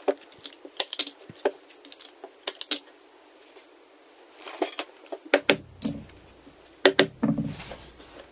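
Painter's canvas drop cloth being folded over a wooden frame, with rustling and light clicks and clatter of handling. In the second half come several loud sharp snaps of a staple gun driving staples into the frame.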